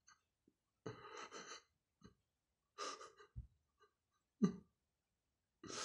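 A man's gasping, sobbing breaths in several short bursts with silent gaps between, the sharpest about four and a half seconds in.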